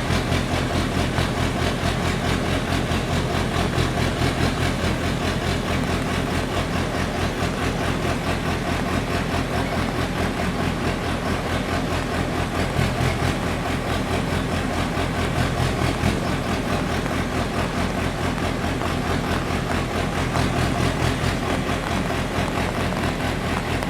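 Pneumatic drill rig drilling: a steady, loud machine noise with a fast, even low pulsing throughout.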